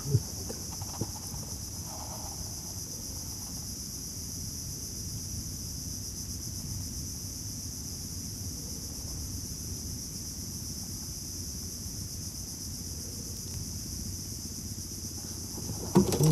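Steady, high-pitched drone of a chorus of insects, with a low rumble underneath and a few sharp knocks near the end.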